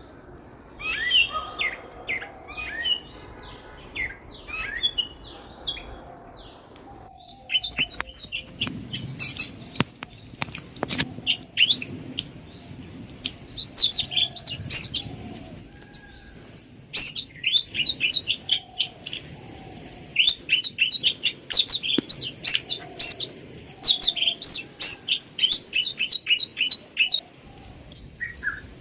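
Several birds chirping and singing, with quick high chirps that become dense, near-continuous runs from about a quarter of the way in and thin out just before the end.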